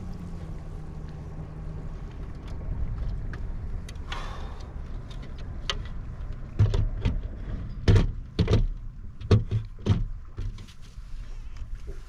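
Knocks and thumps on a fishing kayak over a low steady hum: a run of sharp knocks comes between about six and ten seconds in.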